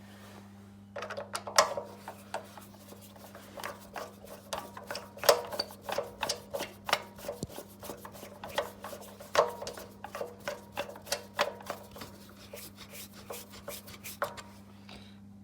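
Hand screwdriver driving screws into the plastic motor housing of a Makita chop saw: a long run of irregular clicks and scraping as the screws are turned in, starting about a second in and stopping near the end.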